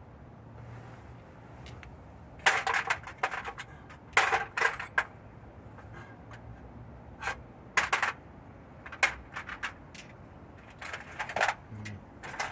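Steel sockets clinking against each other in several short bursts of sharp metallic clinks, as a socket set is rummaged through for the right size.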